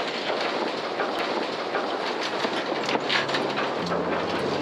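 Steady rush of water along a moving sailboat's hull, with wind on the microphone and small splashes.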